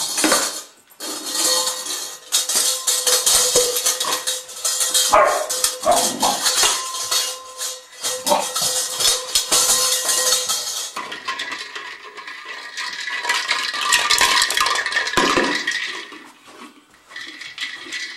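A Labrador's dog bowl clattering and rattling as it is knocked and pushed about, with a dog barking now and then. From about eleven seconds in, a steadier rushing sound with a held high tone takes over for several seconds.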